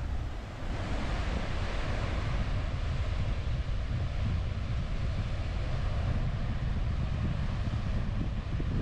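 Steady wash of surf on a beach, with wind buffeting a GoPro's microphone and giving a constant low rumble. The hiss of the surf grows fuller about a second in.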